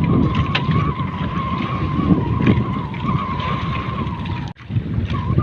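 An engine running steadily with a wavering whine, under wind buffeting the microphone; the sound drops out for an instant near the end.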